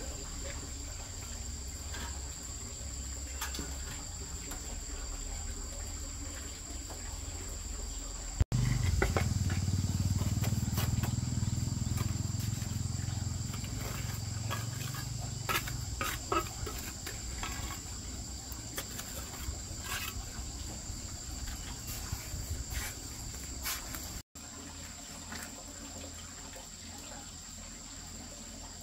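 Steady high drone of insects chirring, with scattered scrapes and knocks of a steel trowel on wet mortar and hollow cement blocks as the blocks are laid. A low rumble runs through the middle part.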